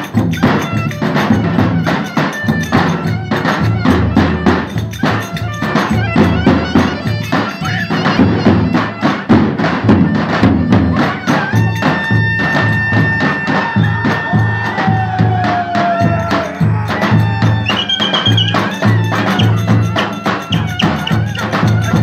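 Live Turkish folk dance music: a davul bass drum beats a steady, driving rhythm with sharp clacking strokes, under a reedy wind instrument playing the melody, which holds long notes partway through.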